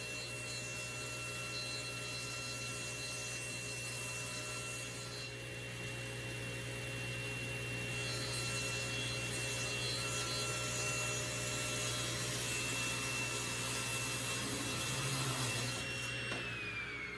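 Table saw ripping a walnut board, a steady motor hum and a high blade whine under the noise of the cut. Near the end the saw is switched off and the whine falls in pitch as the blade spins down.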